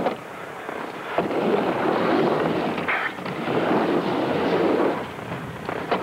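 Skateboard wheels rolling on a ramp, the rumble swelling and fading twice, with a sharp clack a little over a second in and another near the end.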